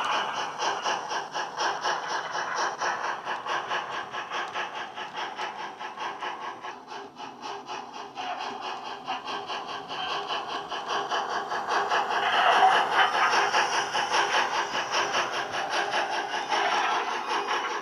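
Model steam locomotive's Loksound 5 sound decoder playing steam exhaust chuffs through its onboard speaker, a fast, even beat as the Hornby Q1 runs under power. The sound fades for a few seconds as the locomotive moves away, then grows louder again as it comes back past.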